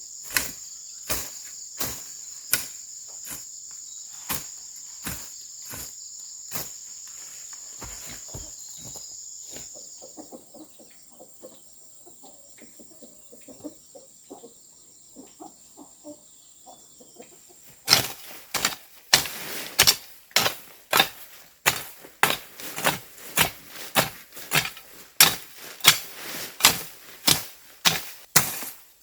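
Repeated strikes of a hand tool working, about one a second under a steady high insect drone at first. After a quieter stretch of about eight seconds, a louder, faster run of about two strikes a second.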